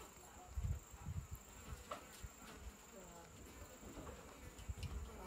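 Insects buzzing over a steady faint high hum, with a few dull low thumps, the loudest about half a second to a second in.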